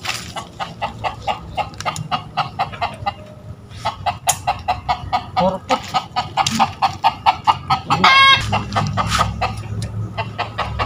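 Domestic chickens giving rapid, repeated alarm clucks, frightened by a monitor lizard close by, with a louder, drawn-out squawk about eight seconds in.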